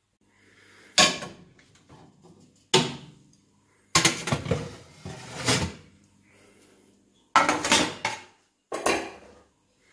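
Electric oven door being opened and a metal baking tray pulled out over the oven rack: a series of separate metal clanks and scrapes.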